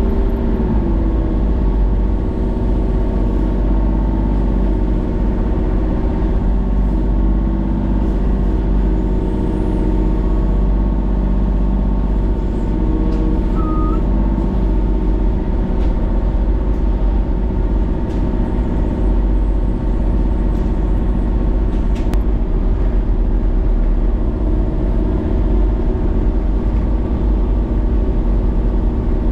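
Kubota mini excavator's diesel engine running steadily under hydraulic load as the boom and thumb work, its note shifting slightly in the first half. A single sharp click about two-thirds through.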